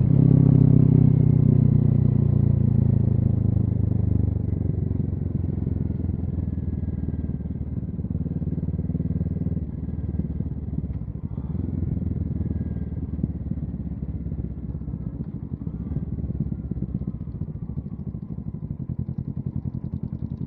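Kawasaki Z650's parallel-twin engine running as the motorcycle is ridden, picked up by a helmet-mounted mic. The engine note is loudest for the first few seconds, then eases off into a steadier, quieter cruise.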